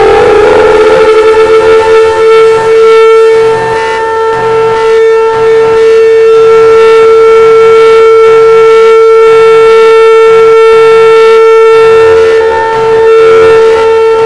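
Home-made emergency alert (EAS) siren tone, loud, settling at the top of its rise and then held at one steady pitch, wavering briefly a few seconds in.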